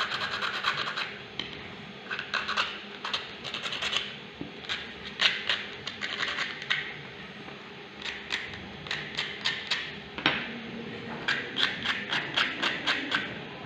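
Sandpaper rubbed by hand over the edges of 3D-printed PLA plastic parts, in quick repeated scratchy strokes that come in clusters, with a short lull a little past the middle.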